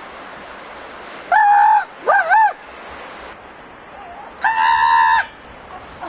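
A person imitating a gull's call to draw the gulls in: three loud, honking calls, a short one about a second in, a wavering one just after, and a longer held one near the end.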